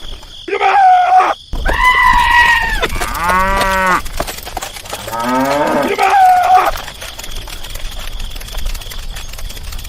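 Cattle mooing: four drawn-out calls over about seven seconds, the second and fourth with the same rising pitch, then a quieter steady background.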